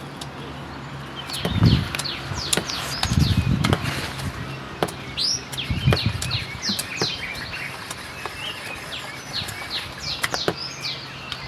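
Small birds chirping, many short quick chirps overlapping from about a second in. A few low thumps sound in the first half, the loudest about two seconds in.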